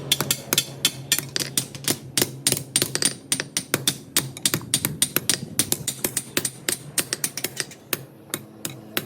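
Rapid hammer blows on steel while forging a sickle blade, about six sharp strikes a second, easing off briefly near the end.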